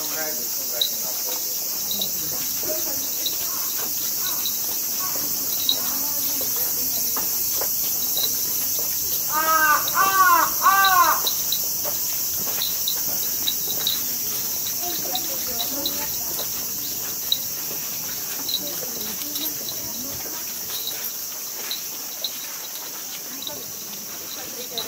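Steady high-pitched drone of a cicada chorus. About ten seconds in, a bird calls three times in quick succession.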